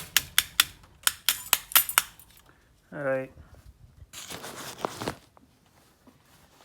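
Laminated steel padlock being tapped: about nine quick, sharp metallic taps in the first two seconds, knocking it to shake loose bits of its melted plastic core. About four seconds in there is a second-long burst of hissing noise.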